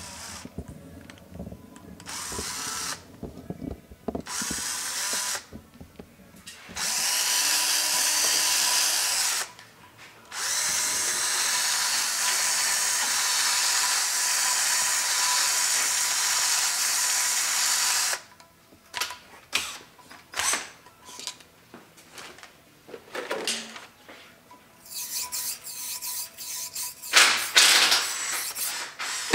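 Cordless drill spinning a Goodson diamond hone inside a new valve guide in a cast-iron Pontiac 455 cylinder head, honing the guide bore, which is tight after press-fitting, out to valve-stem oil clearance. A few short bursts come first, then two long steady runs that stop about 18 seconds in. After that come scattered clicks and light metal taps as the tool is handled.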